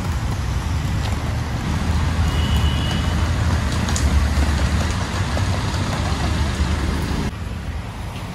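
Busy street traffic in heavy rain: a steady wash of traffic and rain noise with a low rumble under it, and a faint, brief high beep about two and a half seconds in. The noise drops suddenly near the end.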